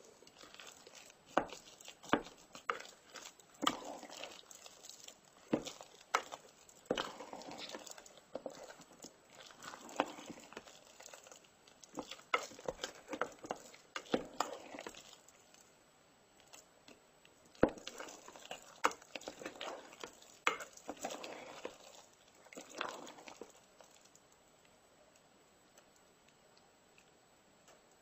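A rice paddle stirring and scooping sticky rice cooked with crushed Oreo cookies in a rice cooker's inner pot: irregular sharp knocks of the paddle against the pot, with soft wet scraping and squishing between them. The stirring dies down for the last few seconds.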